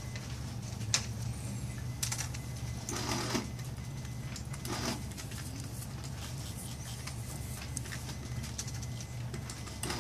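Pen strokes scratching across a small sketch card, with light taps and handling of the card, over a steady low hum. A couple of longer scratchy strokes come a few seconds in.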